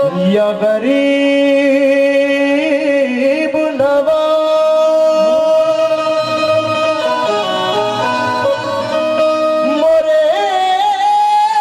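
Live qawwali: a man sings long, wavering held notes over a sustained harmonium accompaniment.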